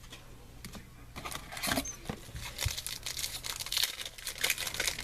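Foil trading-card pack wrapper crinkling and tearing as a pack is opened and handled, a rapid irregular crackle that starts about a second in.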